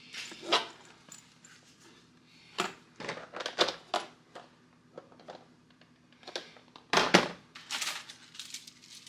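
Small plastic packs and cases being handled and set down on a wooden workbench: scattered clicks, knocks and rustling, loudest about seven seconds in.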